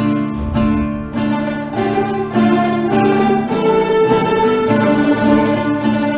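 Instrumental background music led by plucked strings, with a steady run of notes.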